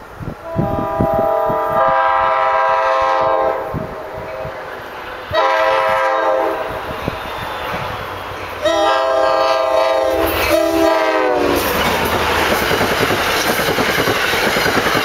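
NJ Transit F40PH-2CAT diesel locomotive's horn sounding four blasts for a grade crossing. The first blast is long and the last dips in pitch as the locomotive passes. The Comet V coaches then rush by, their wheels clattering over the rail joints.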